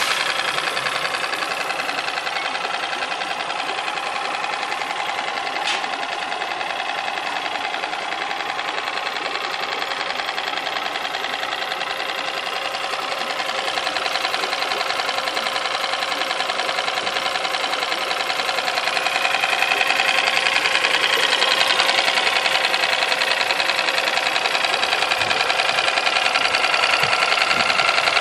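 Mercury F5 5 hp single-cylinder four-stroke outboard engine running steadily with its cowling off, the powerhead exposed; it gets somewhat louder about two-thirds of the way through.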